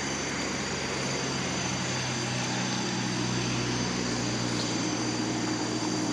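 A steady engine drone under a hissing wash, slowly getting louder.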